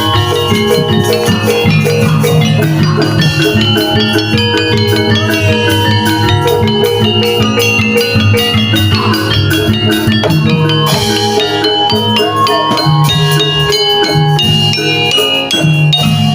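Javanese gamelan music for a jaranan horse dance: struck metallophones ring out interlocking melodic notes over steady drumming.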